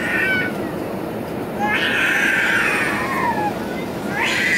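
A baby crying: a short wail at the start, a long cry from about two seconds in that falls in pitch at its end, and another beginning near the end. Beneath it runs the steady drone of the Airbus A320's cabin during approach.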